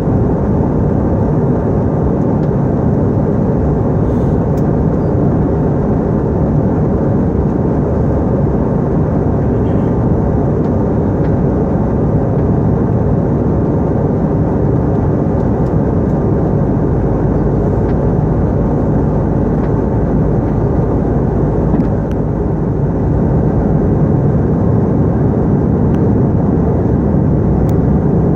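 Steady cabin noise of an airliner in flight: engine and airflow noise heard inside the passenger cabin, deep and even. It dips briefly and then sits slightly louder about three-quarters of the way through.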